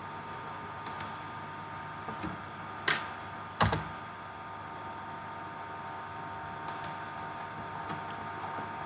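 A few sharp computer mouse clicks and keyboard keystrokes, two of them quick double clicks, over a steady faint hum.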